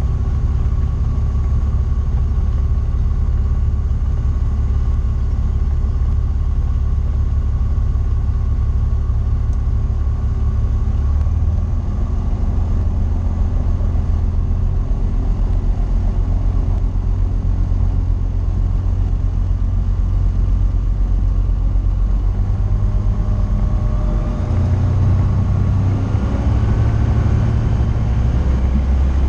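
Tecnam P2002JF's Rotax 912 four-cylinder engine and propeller running steadily, heard from inside the cabin. Over the last few seconds the engine note steps up and rises.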